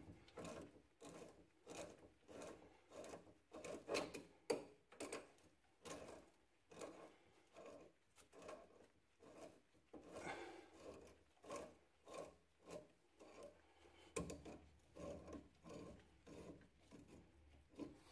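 Faint, irregular rubbing and scraping, a few soft strokes a second.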